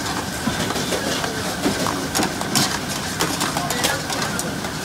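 Long metal spatula scraping and clanking against a steel karahi wok as a curry is stirred, a few sharp clanks standing out, over the steady rush of open gas-burner flames.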